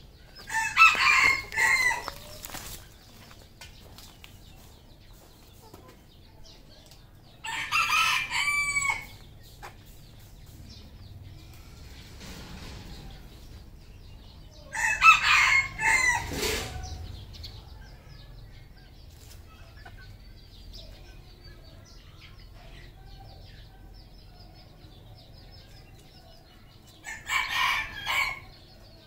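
Red junglefowl roosters crowing: four crows of about one and a half to two seconds each, several seconds apart.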